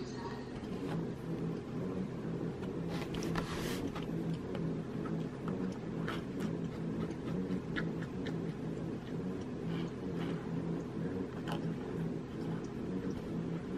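A steady low drone with faint, scattered scratches and taps of a paintbrush working paint on canvas, a cluster of them about three seconds in.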